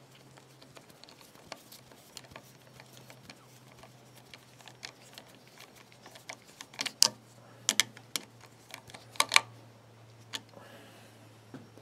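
Small metallic clicks and taps of a screwdriver driving and tightening a tiny screw into an alternator's brush box, with a cluster of sharper clicks between about seven and nine and a half seconds in.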